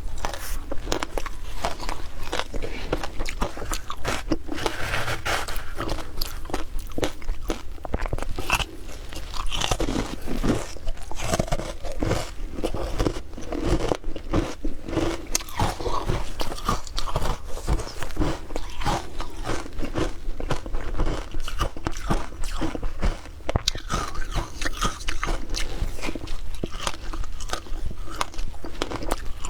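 Close-up crunching of frozen ice being bitten and chewed, a dense, continuous run of sharp crackles and crunches.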